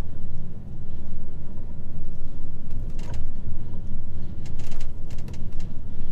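HGV truck running along a lane, its engine and road noise heard as a steady low rumble inside the cab. A few short sharp clicks or knocks come through about three seconds in and again several times around five seconds in.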